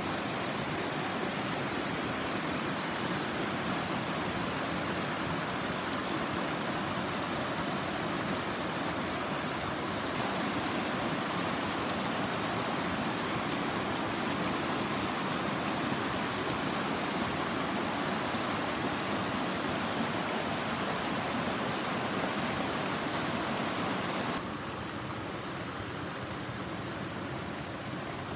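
Mountain creek rushing over rocks and boulders in small rapids: a steady, even rush of water. It becomes noticeably quieter near the end.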